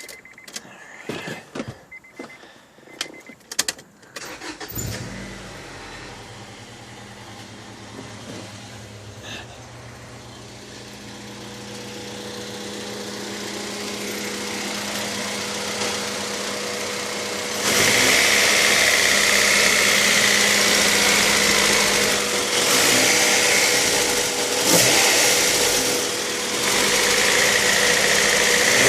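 Acura Integra LS's Honda B18B1 1.8-litre four-cylinder engine starting after a few clicks and knocks, then idling with a ticking noise that the owner hopes is not a rod knock. The engine sound gets much louder and brighter about two-thirds of the way through.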